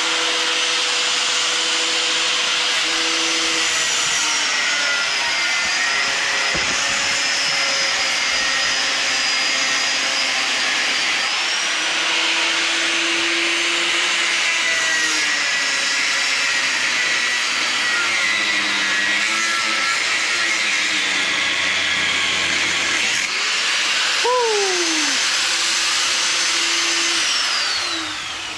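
Power grinder with a cut-off wheel cutting steadily into a steel motorcycle frame. Its high whine sags under load, picks up again about a third of the way in, and winds down near the end as the tool is taken off the metal.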